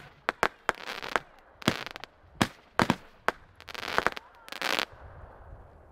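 Multi-shot consumer firework cake firing its last shots: sharp bangs and several longer bursting shells, ending about five seconds in.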